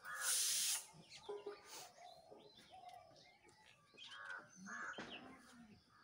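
A short hissing rustle in the first second, then faint scattered bird chirps in the background.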